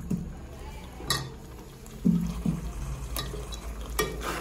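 A cooking pot of lentils and spice masala being stirred, with a few sharp clinks of the spoon against the pot and a couple of soft thuds.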